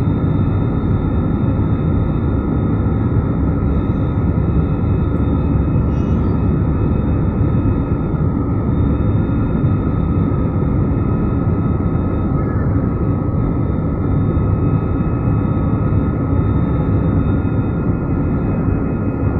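Jet airliner cabin noise in flight shortly after take-off: the engines running and air rushing past the fuselage, a steady low rumble with a faint high whine above it.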